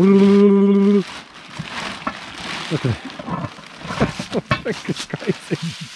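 A voice holds one loud, steady note for about a second. Then a black plastic trash bag rustles and crinkles for several seconds as it is pulled open around a Dutch oven packed in cardboard.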